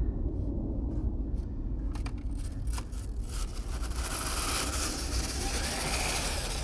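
Dryer-vent cleaning brush on a long flexible rod working through a flexible aluminium foil dryer duct: clicks and scraping against the foil walls, turning into a dense rustling hiss about four seconds in. A steady low rumble runs underneath.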